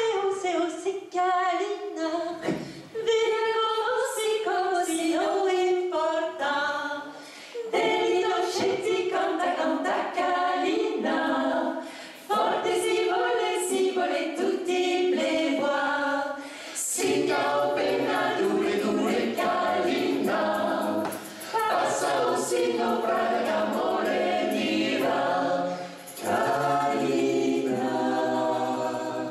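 A cappella vocal group singing in harmony without instruments. Female voices sing alone at first, and lower male voices join about halfway through.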